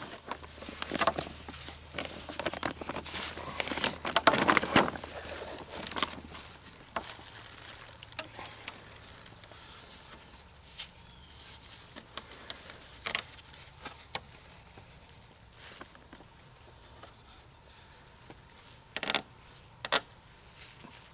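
Close handling sounds of cord being wrapped and pulled tight around bark-covered poles while lashing them together: rustles, rubbing and small clicks, dense for the first few seconds, then sparser, with two sharper clicks close together near the end.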